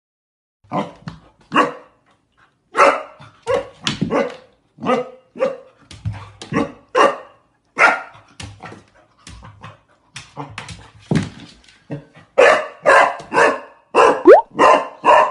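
Golden retriever puppy barking at its own reflection in a mirror: a long run of short, separate barks, one or two a second, coming faster and louder near the end, with one rising squeal among them.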